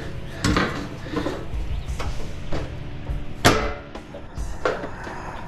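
Several sharp knocks and clanks, the loudest about three and a half seconds in, as parts of a PTAC air-conditioner are worked and pulled loose during teardown for scrap, over a steady low hum.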